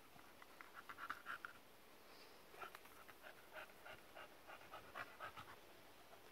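A dog panting, faint and quick, at about four short breaths a second, in two runs with a pause of about a second between them.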